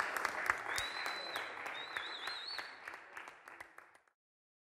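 Applause and cheering whistles from a small group, with single claps standing out, fading and then cutting off about four seconds in.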